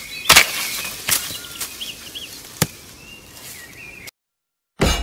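Large knife blade hacking at a thin sapling trunk: several sharp chops, the loudest about a third of a second in, with birds chirping faintly behind. The sound cuts off abruptly about four seconds in.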